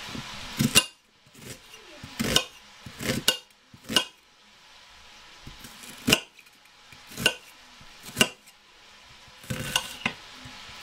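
Kitchen knife cutting through an onion and knocking on a hard cutting board, a string of sharp knocks roughly one a second with uneven gaps.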